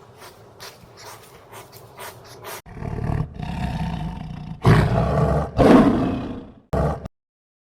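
A lion roaring, a low, loud call starting about a third of the way in, with two strongest pulses close together before it cuts off. Softer, short repeated sounds come before it.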